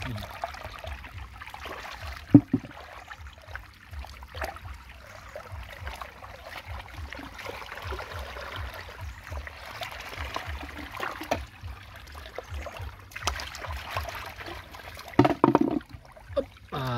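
Shallow muddy stream water flowing and trickling, stirred by hands and feet sloshing through it, with one sharp splash about two seconds in and heavier sloshing near the end.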